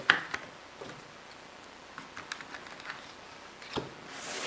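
Phone-box accessories and packaging being handled and set down: scattered light clicks and taps of plastic and cardboard, with a sharper knock about 4 s in and a brief rustle or slide near the end.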